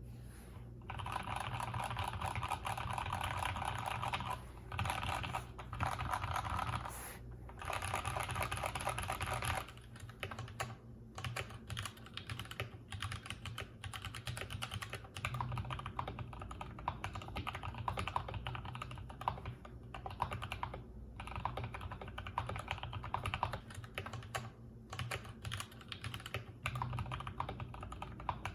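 Typing on a Durgod Hades 68 mechanical keyboard with Gateron Yellow linear switches. A fast, dense run of keystrokes for about the first ten seconds is broken by brief pauses, then gives way to sparser, uneven typing.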